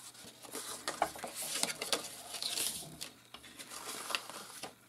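Cardstock being handled and folded by hand along its creases: rustling and light crackling of card, with scattered small taps.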